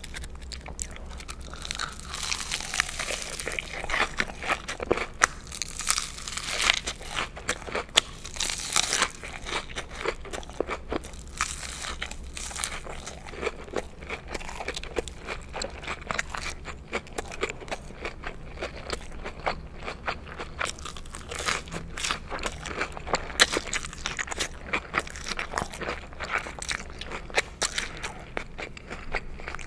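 Close-miked crunching and chewing of crispy breaded spicy chicken McNuggets dipped in sauce, a dense run of crackling crunches with wet mouth sounds.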